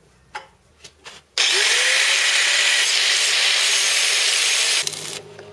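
Handheld angle grinder with a cut-off disc speeding up about a second and a half in, then cutting through a metal tube with a loud, steady hiss for about three and a half seconds before it drops away. A couple of light knocks come before it starts.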